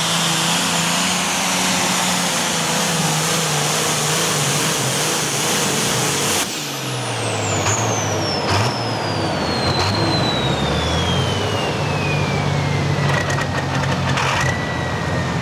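Ford pulling tractor's engine running hard under load as it drags the weight-transfer sled down the dirt track. About six seconds in the sound changes abruptly; after that the engine note sinks and comes back up, and a high whine falls steadily in pitch through the rest of the pull.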